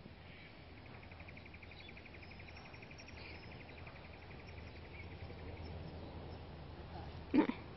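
A rapid, high trill of evenly spaced pulses, typical of an insect, over faint outdoor background noise for the first few seconds. Near the end comes a brief, louder sound.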